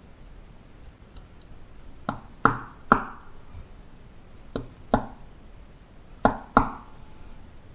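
Seven sharp knocks on a hard surface, each with a short ring, in groups of three, two and two.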